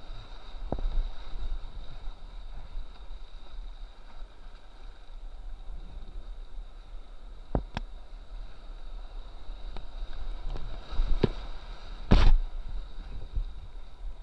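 River rapids rushing around a whitewater kayak as it is paddled, with sharp splashes of paddle strokes and water hitting the camera, the loudest about twelve seconds in.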